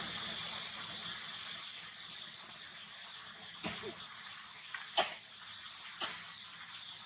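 Steady outdoor hiss, with a few short, sharp cough-like sounds about a second apart in the last couple of seconds.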